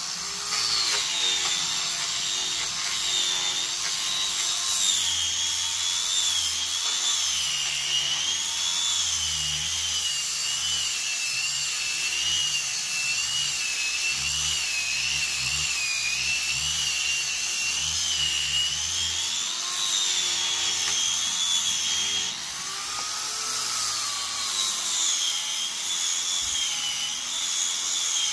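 Angle grinder with a hook-and-loop sanding disc sanding a jujube-wood slab, running continuously with a high whine that wavers in pitch as the disc bears on and eases off the wood. About three-quarters of the way through it briefly drops in level and pitch, then picks up again.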